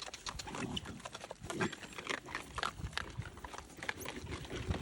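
Coatis at food: short low grunts and snuffles among many quick, irregular clicks.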